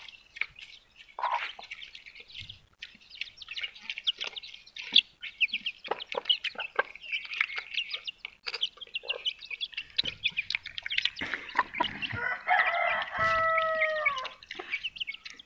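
Chicks peeping constantly in quick high cheeps around a hen. About twelve seconds in, a rooster crows once, a drawn-out call of about two seconds that drops in pitch at the end.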